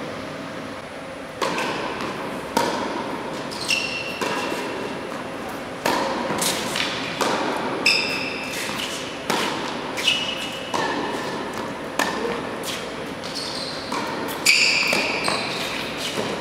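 Tennis balls struck by rackets and bouncing on an indoor hard court, a sharp hit about every second, echoing in the large hall.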